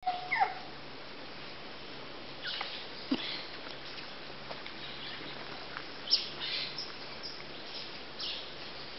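Scattered short animal calls: a few brief high chirps and squeaks that slide downward in pitch, the loudest a sharp chirp about six seconds in.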